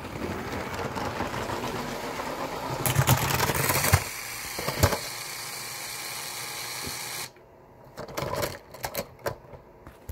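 Motorized Lego train's small electric motor whirring as it runs along plastic track, growing louder with a clatter of impacts about three to five seconds in as it strikes a Lego truck on the crossing. The whirring cuts off abruptly about seven seconds in, followed by scattered light clicks.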